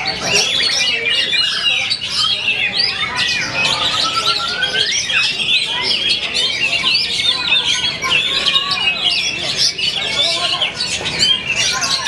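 Many caged oriental magpie-robins (kacer) singing at once: a dense, unbroken chorus of overlapping whistles and chirps.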